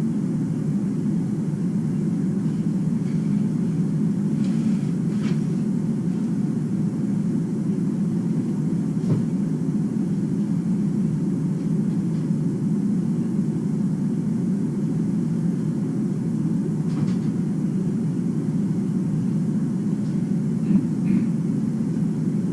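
Steady low rumble of background noise, with a few faint short taps scattered through it.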